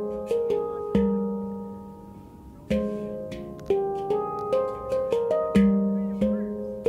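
Oasis Sound Sculpture handpan in F minor played by hand. Single notes are struck and left ringing over a low ringing note. The notes die away in a lull about a second in, then a quicker run of strikes follows from about three seconds in.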